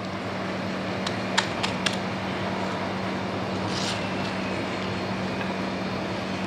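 Steady background hum and hiss, with two sharp clicks about a second and a half in and a brief scrape near the middle: a kitchen knife knocking and scraping on a ceramic plate while slicing mango.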